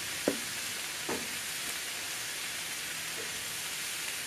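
Butter, bread rolls and thin-sliced venison sizzling steadily on a hot Blackstone flat-top griddle, with two brief knocks in the first second or so.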